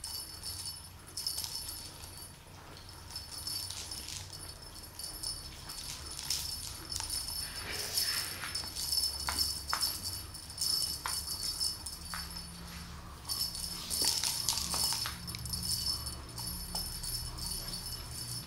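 Small metal bell on a cat wand toy jingling in irregular bursts as the toy is dangled and batted by kittens, with a few light taps.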